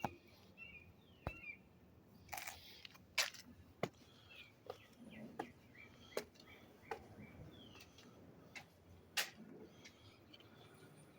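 Small birds chirping in short, scattered calls, mixed with a dozen or so sharp clicks and taps.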